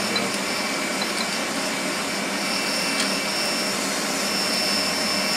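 Steady whooshing machine noise with a faint high whine in it, and a few light clicks as the differential parts are handled.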